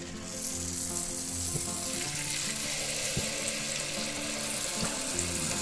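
Pitha batter deep-frying in hot oil in a wok, sizzling; the sizzle jumps up sharply about half a second in and then holds steady. Background music plays underneath.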